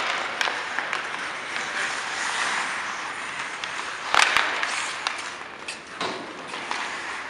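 Ice hockey play: skate blades scraping and carving the ice, with sharp clacks of sticks and puck, the loudest a hard knock about four seconds in.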